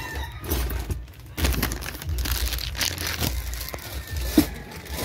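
Plastic crinkling and rustling close to the microphone, with irregular handling knocks and scrapes.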